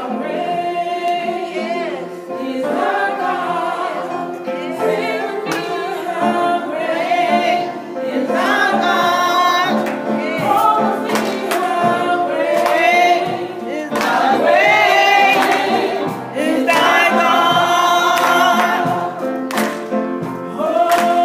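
A woman singing a gospel song solo into a microphone, holding long, sliding notes.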